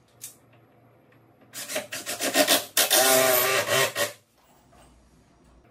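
Power drill driving a screw through the cabinet into a wall stud: a few short bursts, then a steady run of about a second and a half that stops suddenly.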